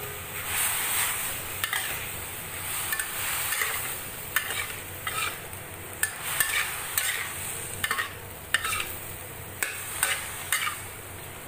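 Metal spatula scraping and clacking against a metal wok as food is stir-fried, with irregular sharp strikes over a steady sizzle.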